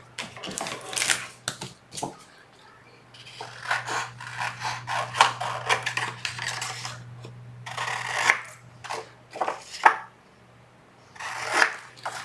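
Scissors snipping cardstock in short cuts, with paper rustling and handling between them. A faint low hum runs underneath for a few seconds in the middle.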